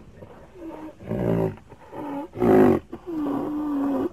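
Rhinoceros calling: several short, pitched calls, then one longer, steady call near the end.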